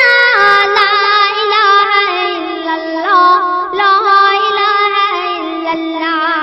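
A boy's solo voice singing a Sindhi hamd, an ornamented devotional melody that steps gradually downward and settles on a long held note near the end.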